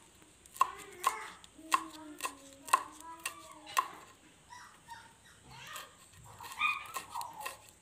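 Kitchen knife chopping green chillies on a wooden board: sharp chops about twice a second, stopping about four seconds in.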